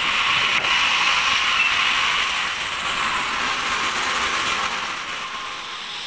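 Sawmill machinery running with a steady mechanical noise, easing off slightly near the end.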